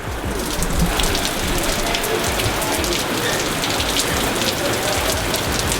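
Steady rain falling, with many separate drops ticking sharply close by; it grows a little denser about half a second in.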